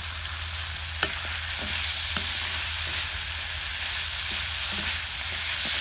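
Chicken pieces with capsicum and tomato sizzling steadily in oil in a metal kadai while a wooden spatula stirs them, knocking and scraping against the pan about five times.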